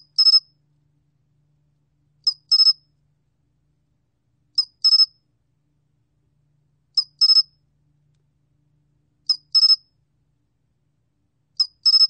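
솔귀뚜라미 cricket singing at 21 °C: high-pitched chirps repeated evenly about every two and a third seconds, six in all. Each chirp is a brief opening note followed at once by a quick run of two or three pulses.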